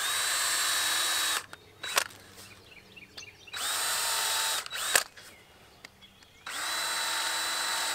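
Cordless drill boring pilot holes through thin wooden furring strips, to keep them from splitting. It makes three short runs, each spinning up quickly to a steady whine and stopping abruptly. A few sharp clicks and knocks fall in between.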